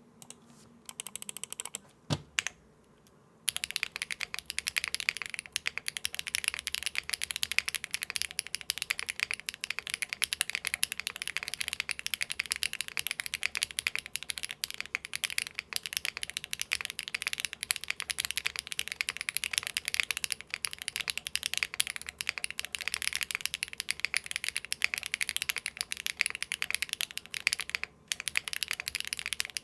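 Fast continuous typing on an Akko M1 V5 mechanical keyboard with stock Akko Cilantro tactile switches and GMK keycaps, run with all foam removed. It is clacky, but the builder finds it somewhat thin and puts that down to flex cuts leaving air gaps through the plate and PCB. A few light clicks and a single knock come first, then steady typing from about three seconds in, with a brief pause near the end.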